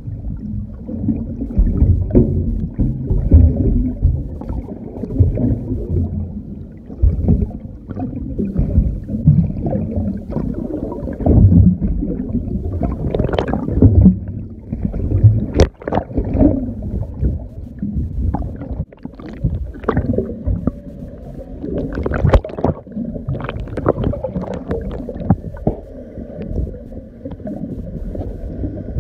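Underwater water noise: a low, uneven rumble and swish with scattered clicks and pops.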